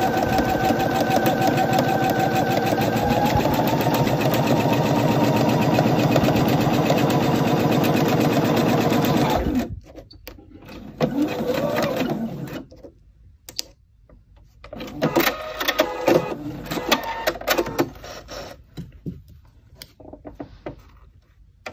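Electric sewing machine stitching steadily at speed through fabric, cutting off sharply about ten seconds in. After that come a short whir from the machine and rustling as the fabric is pulled out from under the presser foot.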